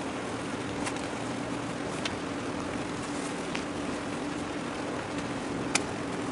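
Steady distant drone of a large ship's machinery holding one constant hum note, with a few sharp ticks, the loudest near the end.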